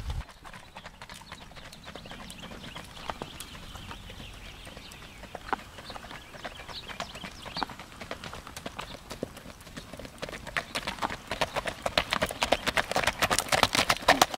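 Hoofbeats of a Tennessee Walking Horse gaiting on a gravel drive: a steady run of clip-clops that grows louder over the last few seconds as the horse comes close.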